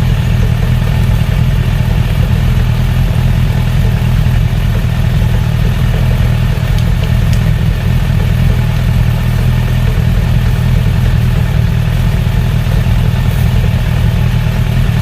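Suzuki Bandit 1200S's air/oil-cooled inline-four engine idling steadily, running on all four cylinders after a carburettor sync cured a misfire.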